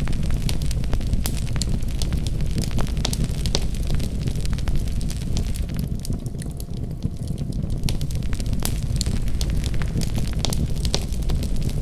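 Wood fire burning in a fireplace: a low steady rumble with frequent sharp crackles and pops, which thin out briefly about six seconds in.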